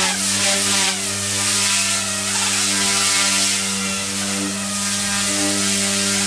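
Six-channel single-rotor electric RC helicopter running steadily, its motor and spinning rotors giving a constant hum with an airy hiss.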